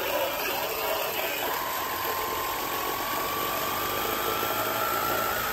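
CRUIFU cordless battery pressure washer running: its small electric pump motor gives a steady whine under the hiss of the water jet hitting the siding. The whine grows stronger about a second and a half in and creeps slightly higher in pitch.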